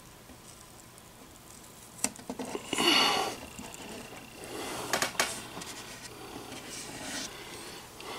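Blue painter's tape being handled and applied: short rustles of the tape being pulled, torn and pressed onto the wooden cabinet, with a few sharp clicks. The loudest rustle comes about three seconds in.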